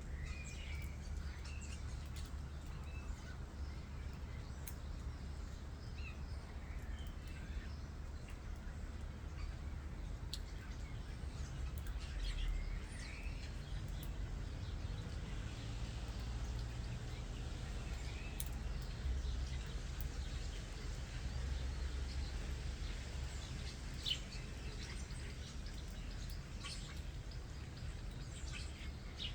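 Common starlings chirping and whistling in short scattered calls over a steady low background rumble, with one sharp click late on.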